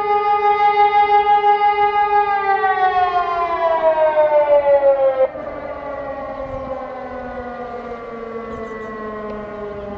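Two civil-defence sirens, an E57 electromechanical siren and an Ergatec EWS4 electronic siren, sound a steady tone together, then both wind down in pitch after about two seconds as the test alarm ends. The louder, higher tone cuts off suddenly about five seconds in. The other keeps sliding slowly lower.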